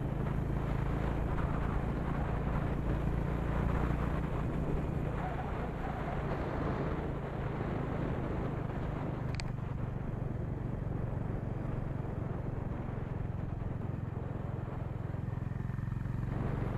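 Honda H'ness CB350's single-cylinder engine running under way, its exhaust note picked up close to the silencer: a steady low drone, a little quieter after about six seconds, with one brief click a little past halfway.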